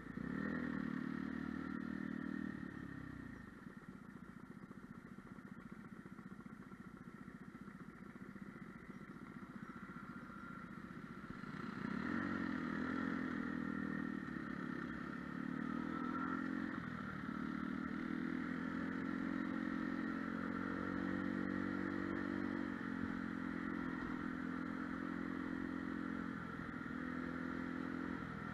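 Lexmoto Milano scooter's small engine running under the rider: it eases off about three seconds in and runs quieter for several seconds, then picks up again about twelve seconds in and holds a steady note.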